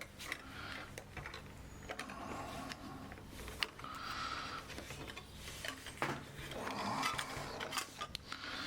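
Small scattered clicks and taps of camera parts and tools being handled during reassembly, the sharpest about three and a half seconds and seven seconds in.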